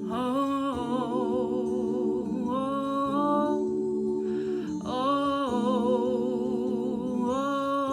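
Wordless a cappella vocal harmony: several layered voices humming held notes with vibrato, moving together to a new chord about every two to three seconds.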